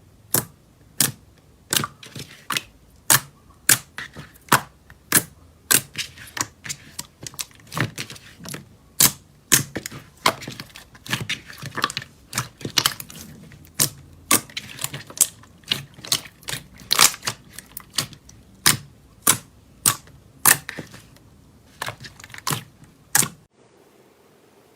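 Slime being pressed and worked by hand, giving sharp popping clicks about two a second in an uneven rhythm that stop near the end.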